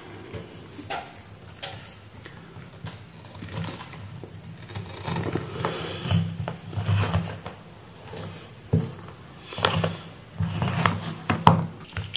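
Power cords and plastic plugs being handled on a workbench: scattered clicks, knocks and rustling. These grow busier in the second half, with the loudest knock near the end.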